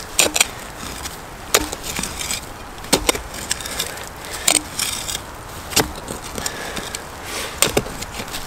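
Steel blade of a survival multi-tool shovel chopping into forest soil and leaf litter in a series of sharp strikes about every second or so. Some strikes carry a brief metallic ring, with scraping and crunching of dirt in between.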